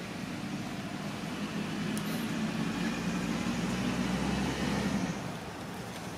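A low, steady engine hum that swells from about a second and a half in and fades near the five-second mark, over a constant outdoor hiss.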